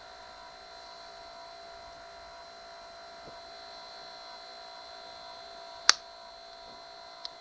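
Car windshield wiper motor running steadily off a 12-volt battery: a steady electric whine made of several held tones, with the motor drawing a little over 3 amps. A sharp click about six seconds in and a smaller one near the end.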